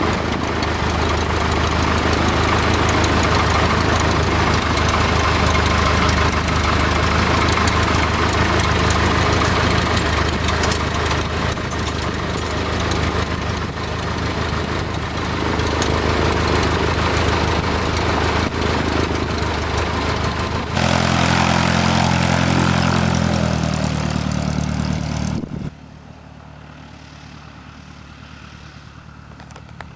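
A Continental A-65 four-cylinder, air-cooled aircraft engine runs steadily, heard loud from inside the cockpit. About 21 seconds in the sound changes abruptly, and about 25 seconds in it drops to a much fainter engine drone.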